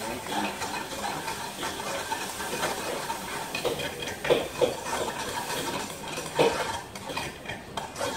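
Irregular clinks and knocks of hard objects being handled, over a steady hiss, with sharper knocks about four seconds in and again after six seconds.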